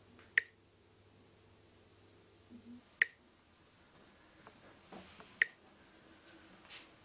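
Three sharp single clicks, evenly spaced about two and a half seconds apart, each with a brief ringing tone, over a faint room hum.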